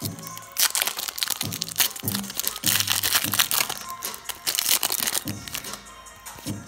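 Crinkling and tearing of a Pokémon TCG booster pack's foil wrapper and plastic sleeve being opened by hand, over background music with a steady beat. The crinkling dies down near the end.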